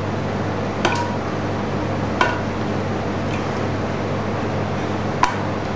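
Steady low background hum with three light clinks, about a second, two seconds and five seconds in, as a silicone pastry brush is worked in a bowl of sugar syrup and over sponge cake strips.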